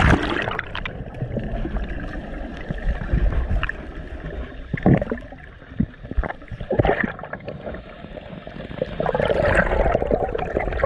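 Muffled underwater sound from a diving camera's waterproof housing during a freedive: a splash on going under, then a low steady rumble of water with scattered knocks and gurgling bubbles, growing louder near the end as the diver comes up toward the surface.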